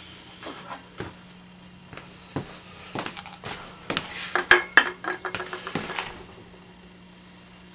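Counter-mounted 16-ounce can crusher being tried out on cans: scattered metallic clinks and knocks, with a cluster of louder clanks around the middle, the two sharpest about four and a half seconds in.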